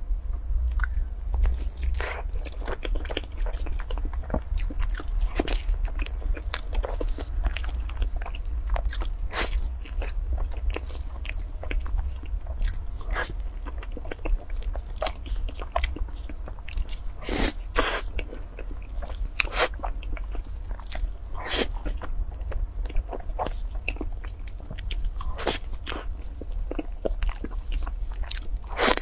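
Close-miked biting and chewing of a chocolate crepe towel roll cake: irregular wet mouth clicks, smacks and chewing sounds, over a steady low hum.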